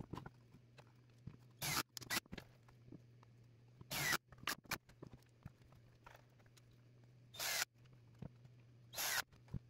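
Cordless drill driving wood screws into a plywood panel and wooden strips in four short bursts, about two, four, seven and a half and nine seconds in, with small handling clicks between them over a faint steady low hum.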